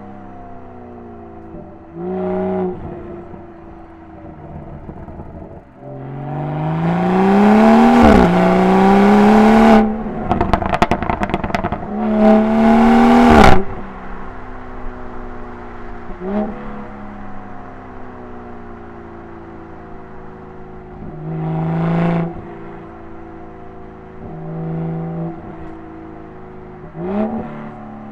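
BMW 340i's B58 3.0-litre turbocharged inline-six with an M Performance exhaust, heard from inside the cabin. It cruises steadily with short throttle blips, then about six seconds in it pulls hard with a rising note and a brief dip at a gear change. A rapid run of exhaust crackles follows when the throttle is lifted, then a second short pull cuts off sharply.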